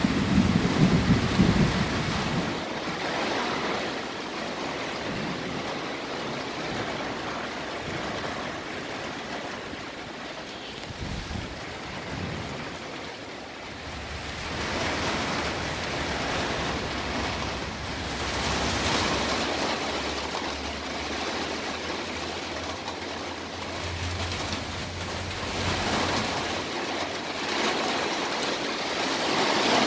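Torrential thunderstorm rain pouring steadily, its loudness swelling and easing as gusts come through. A louder low rumble in the first two seconds is the loudest moment.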